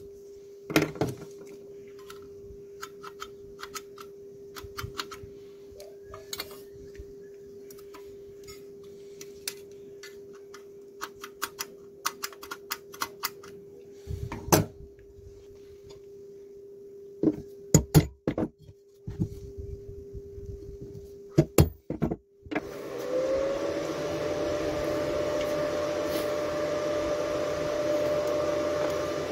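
Scattered clicks and knocks of parts being handled over a faint steady hum. Near the end an angle grinder switches on, its whine rising quickly, then runs steadily at full speed.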